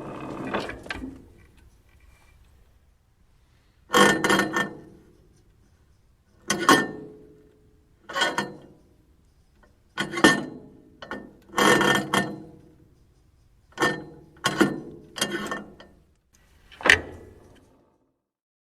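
Metal creaking and clanking: about ten separate short bursts, each starting sharply and dying away within a second, some coming in quick pairs.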